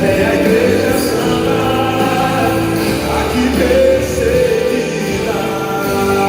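Brazilian gospel song with singing and a choir over a full band.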